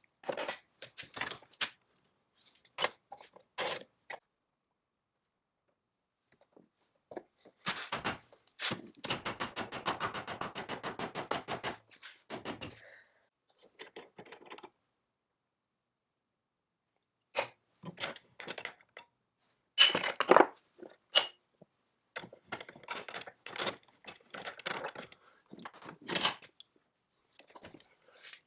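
Metal handling noises at a bench vise: knocks, clanks and scrapes as cast-iron blower parts, the vise and locking pliers are handled. A rapid run of clicks lasts about four seconds, starting about a third of the way in, and the sharpest clanks come about two-thirds of the way through.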